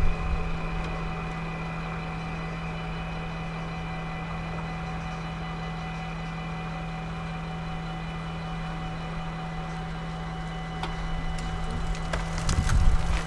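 Dutch level-crossing warning bell ringing steadily while the barriers are down, a constant even tone with no break. In the last few seconds a low rumble and a few clicks grow louder.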